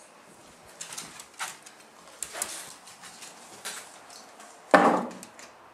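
Handling noise from a handheld camera being swung about: scattered rustles and light clicks, then one louder, sudden scrape or bump near the end that fades within about half a second.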